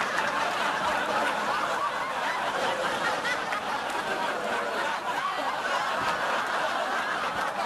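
Sitcom studio audience laughing, one long, steady crowd laugh.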